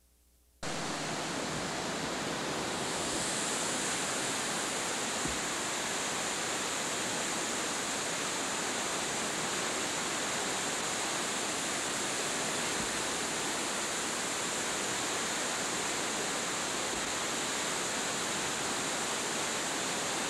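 Mill Creek in flood, the fast brown floodwater rushing down its channel in a steady, unbroken rush. It starts abruptly after a moment of silence.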